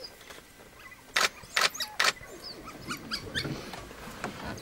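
Three sharp camera shutter clicks in quick succession about a second in, among the short, high, bird-like twittering chirps of African wild dogs.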